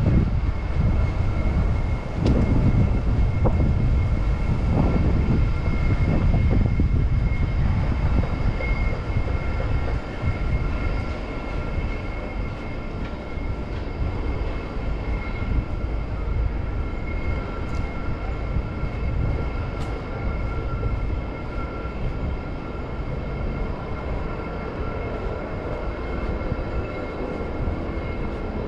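A passing MTR train: a low rumble with a steady high whine above it, loudest for the first ten seconds, then easing off.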